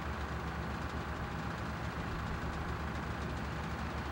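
A diesel engine idling steadily, a deep, fast, even throb that does not change.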